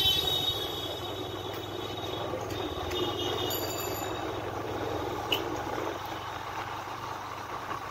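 Motorbike riding along a street: steady engine hum with road and wind noise from the moving bike, and a brief high-pitched tone about three seconds in.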